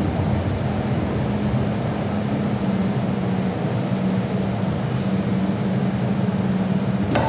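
MTR M-Train electric multiple unit heard from inside the carriage as it pulls into a station platform: steady rumble of wheels and running gear with a low motor hum. A sharp click comes near the end.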